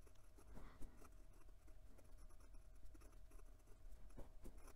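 Faint scratching of a fountain pen's steel nib moving across notebook paper as handwriting is written, in small irregular strokes.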